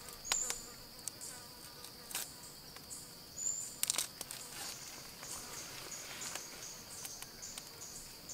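Steady high-pitched drone of insects, with scattered light clicks and taps as food is handled over a stone mortar, the clearest just after the start and around four seconds in.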